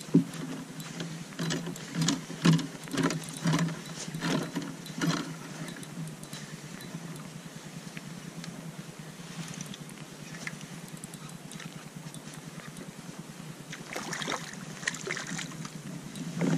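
Irregular knocks and splashes of water against a kayak while a small fish is played on a spinning rod, over a steady low hum. The knocks come several times in the first few seconds, then ease, and a fresh cluster of splashes comes near the end as the fish is lifted out of the water.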